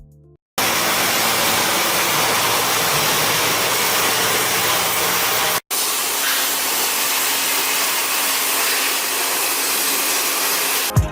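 A loud, steady hiss of rushing air or spray, broken by a split-second cut a little past halfway.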